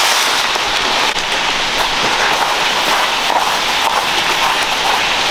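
Hot cooking oil sizzling steadily in a pan as food fries, with scattered small crackles and pops.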